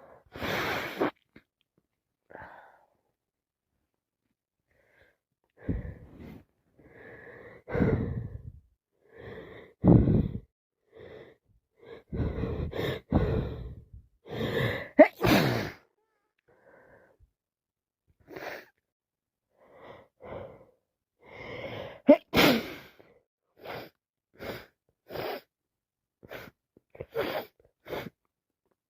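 A woman with a head cold sneezing over and over, with sniffs and gasping breaths in between. After the first sneeze there are a few quiet seconds, then a run of short bursts about a second apart.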